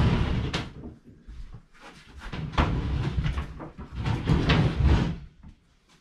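A wooden kitchen base cabinet is shoved and slid across the floor into place, making scraping and rumbling with sharp knocks of wood. It comes in two pushes, a short one at the start and a longer one from about two seconds in.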